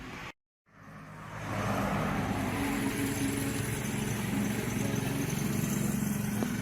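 Komatsu PC20 mini excavator's diesel engine running steadily. It fades in over about a second after a brief dropout to silence.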